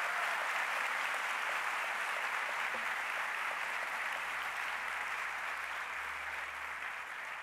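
Audience applauding, steady at first and tailing off near the end.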